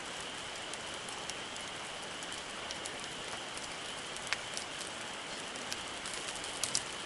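Campfire burning with a steady hiss and scattered sharp crackles and pops, the loudest about four seconds in and near the end.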